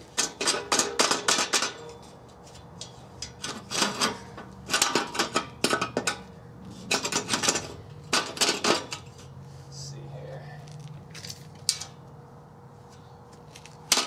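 Steel angle-iron bed frame rails and bracket clinking and rattling as they are slid and adjusted by hand: several short spells of rapid metal clicks, sparser over the last few seconds.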